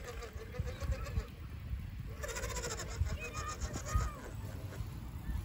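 Small electric RC crawler drivetrain, a 370 brushed motor through a two-speed gearbox, whining as the scale Land Rover Defender crawls over rock, its pitch wavering up and down with the throttle. The whine grows louder and brighter about two seconds in.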